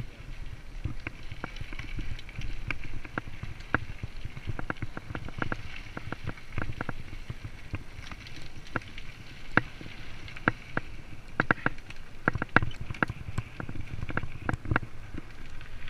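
Mountain bike rolling along a rough farm lane: a low rumble of tyres and wind on the microphone, with frequent irregular clicks and rattles from the bike.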